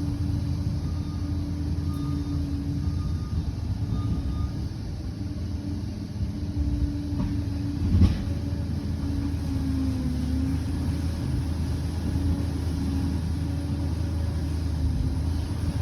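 Liebherr 746 crawler bulldozer's diesel engine running steadily with a deep rumble, and one sharp knock about eight seconds in.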